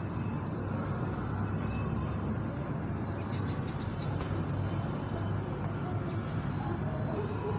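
Sewing machine running steadily, stitching along a folded fabric edge.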